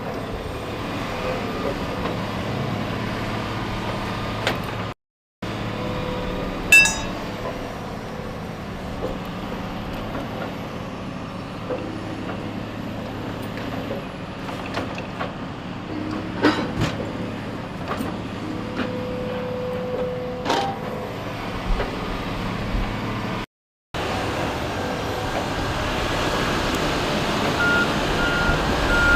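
Heavy logging machine engine running steadily, with a few sharp clunks, the loudest about seven seconds in. The sound cuts out briefly twice. A reversing alarm starts beeping near the end.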